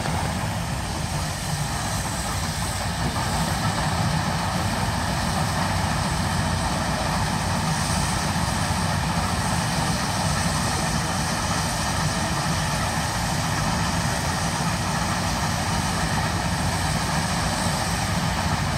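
Steam shovel's engine and stack exhaust running, a steady rushing noise over a low rumble with no clear beat, while the stack throws a column of sparks.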